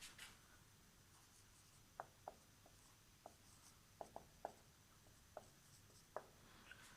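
Near silence: quiet room tone with about nine faint, short ticks scattered through the middle.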